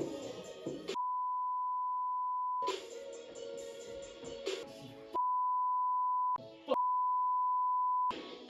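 Background music cut out three times by a long, steady, high beep tone that replaces it entirely: once for nearly two seconds starting about a second in, then twice more in the second half.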